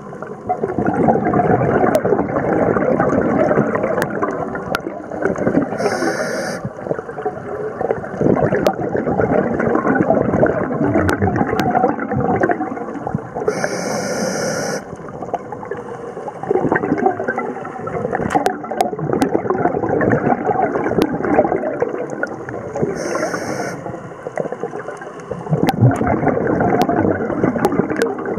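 Scuba diver's breathing heard underwater: a continuous rough bubbling and gurgling of exhaled air, with a short high hiss from the regulator three times, about eight seconds apart.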